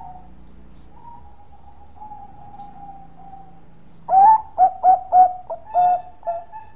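Bangkok-line zebra dove (perkutut) singing its cooing song: a run of about six or seven short, loud coos starting about four seconds in, the first one longest.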